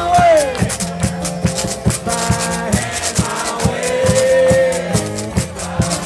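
Live acoustic blues: a man singing over a strummed acoustic guitar, with a washboard scraped in a steady, even rhythm. The voice slides at the start and holds one long note about four seconds in.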